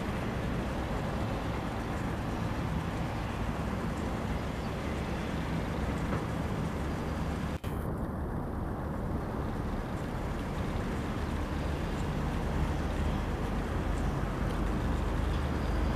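Steady outdoor background rumble and hiss, heaviest in the low end, with a sharp click and a momentary dropout about halfway through.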